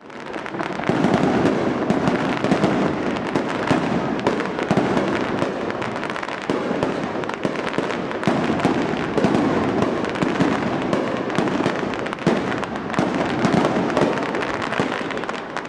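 Fireworks going off in a dense, continuous barrage: many rapid bangs and crackles overlapping without a break.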